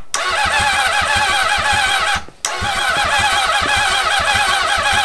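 Honda CB750 inline-four cranking on its electric starter in two goes, with a short break about two seconds in: a wavering starter whine over regular low pulses as the engine turns over. The engine is firing but not catching and running on its own.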